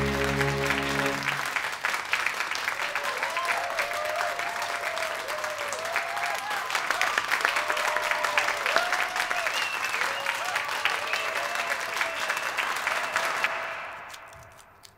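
Audience applauding, with voices whooping and calling out over the clapping. The applause fades away in the last second or two. A held musical chord rings over the first second.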